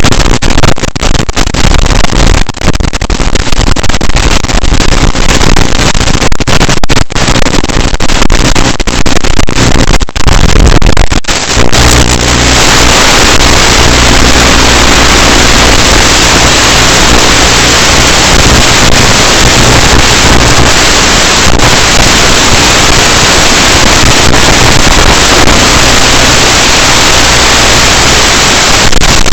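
Loud hiss and crackle of static on the audio channel of an analog FPV video receiver. For the first eleven seconds or so it cuts out briefly again and again; after that it settles into a steady, even hiss with a low hum under it.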